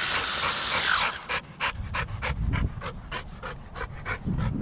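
Dog panting rapidly, about four breaths a second. In the first second a steady hiss with a high whine falls in pitch and cuts off.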